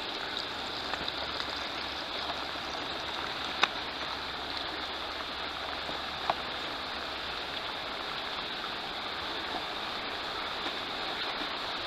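Steady rush of running water in a wet tunnel, with two short sharp clicks about three and a half and six seconds in.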